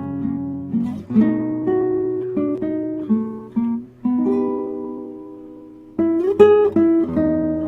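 Background music on plucked strings: single picked notes, then a chord left to ring and fade about four seconds in, then strumming again about six seconds in.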